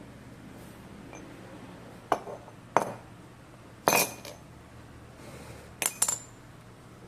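Half a dozen sharp metallic clinks at irregular intervals, each with a short ring, from metal tools or parts being handled and set down; the loudest comes near the middle.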